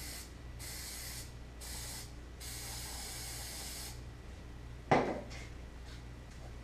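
Aerosol spray can hissing in three short bursts and then one longer burst, directed at a metal motorcycle part. About five seconds in comes a single sharp knock.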